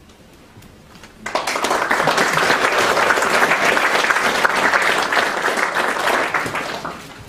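Audience applauding: it breaks out about a second in after a brief quiet, holds steady, and tapers off near the end.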